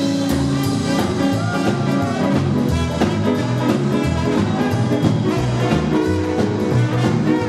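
Live rockabilly band playing, with a trumpet taking the lead over guitar, double bass and a drum kit keeping a steady beat.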